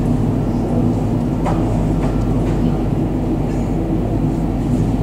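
ATR 72-500 twin turboprop engines and propellers running at taxi power, a steady drone.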